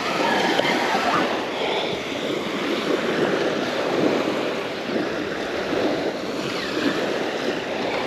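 Small waves breaking and washing up on a sandy beach, with wind on the microphone.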